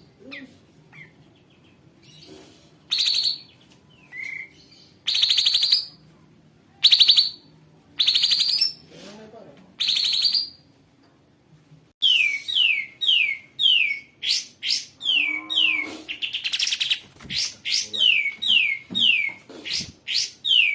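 Kapas tembak song, loud and harsh: separate rasping, rattling bursts about half a second long, then from about halfway a fast series of downward-slurred whistled notes, around three a second, broken by more rasping bursts.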